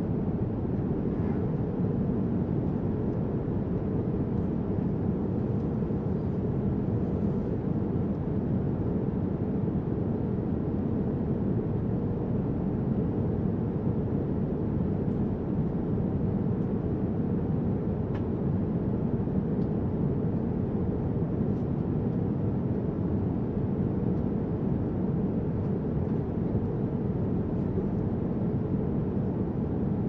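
Airliner cabin noise at cruise: an even, low roar of the jet engines and rushing air, with a faint steady hum running through it.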